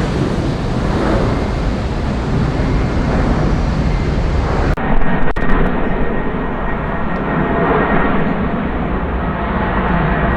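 Jet airliner engines at takeoff thrust: a loud, steady, rumbling noise. About halfway through there is an abrupt change in the sound, as at a cut between two recordings.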